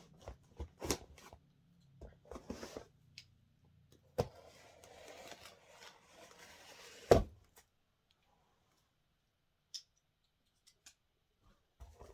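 A cardboard shipping box being opened by hand: clicks and knocks, then a few seconds of rustling and scraping of cardboard and packing, ending in a sharp knock about seven seconds in, after which it goes nearly quiet with a few faint ticks.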